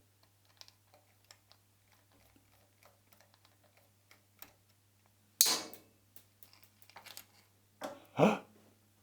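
Small metal clicks and taps of a screwdriver and loose parts being handled while the linear scale assembly is taken off the measuring microscope. Two louder clatters come about five and a half and eight seconds in.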